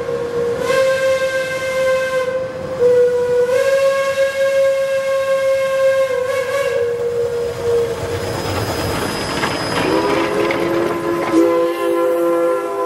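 Steam locomotive whistles blowing long, held blasts, the pitch stepping slightly as the whistle is worked. About eight seconds in, a burst of steam hiss and exhaust rises under it, and near the end a lower, chime-toned whistle takes over.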